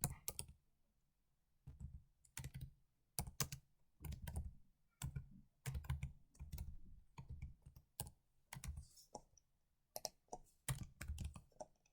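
Keys being typed on a computer keyboard in short, irregular runs of keystrokes with pauses between them.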